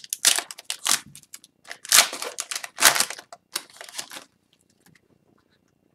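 Hockey card pack wrappers crinkling and tearing in a handful of short bursts as packs are ripped open, going quiet a little after four seconds in.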